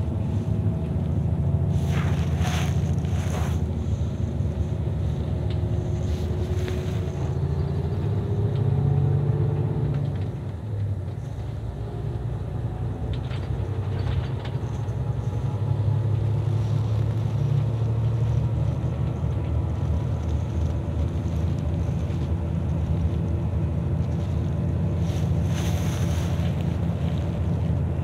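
Steady low engine and road rumble inside a moving coach bus, with a faint whine that slides in pitch as the speed changes. The rumble eases briefly about ten seconds in, and a few short rattles come near the start and near the end.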